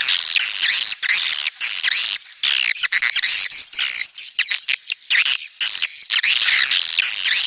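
Edible-nest swiftlets twittering: a dense, continuous run of rapid high chirps, each a quick arching sweep. This is the swiftlets' mating and breeding call, used as a call sound to draw swiftlets into a nesting house.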